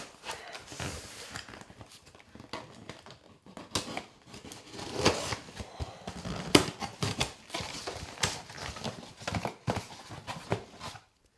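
Cardboard box being opened by hand: packing tape peeling and cardboard flaps scraping and rustling, with irregular clicks and knocks and one sharper click a little past halfway.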